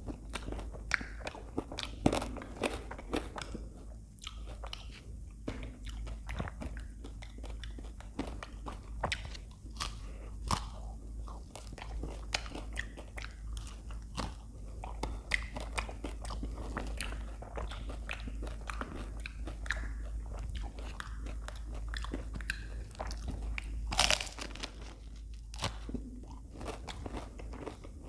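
Close-miked biting and chewing of an ice cream cone: irregular crisp crunches of the wafer cone, with one louder crunch near the end.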